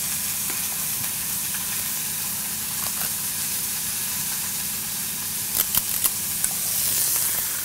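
Fish fillet searing in a hot pan, a steady sizzle. A few light clicks of a metal rice scoop on a plate come a little past halfway.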